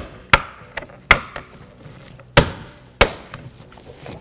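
Plastic door-handle trim on a Chevy Silverado's door panel being pressed and struck by hand to snap its clips in: a series of sharp plastic knocks and snaps, four strong ones with lighter taps between, the loudest a little past halfway.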